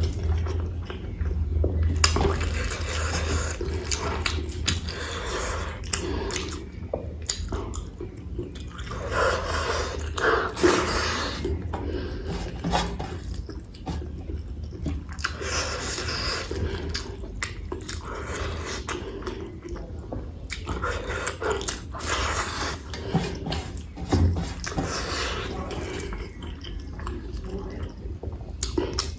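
Close-miked eating sounds: chewing, with wet mouth clicks and smacks, of mouthfuls of rice and potato-cauliflower curry.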